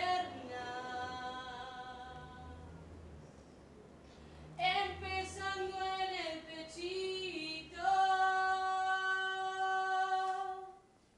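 A woman's voice singing unaccompanied: a long note that fades away, a short phrase about four and a half seconds in, then a long steady held note that stops shortly before the end.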